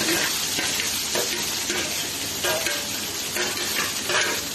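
Chopped onions sizzling in hot oil with whole spices in a kadai, stirred, with the utensil scraping the pan every second or so.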